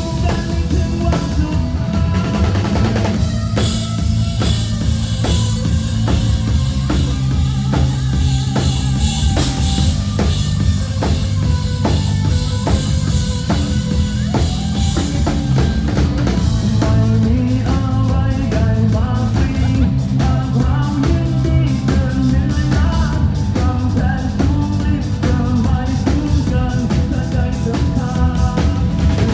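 Rock band playing live through an instrumental passage: a drum kit keeps a steady beat with bass drum and snare, under held notes from pitched instruments and a heavy low end.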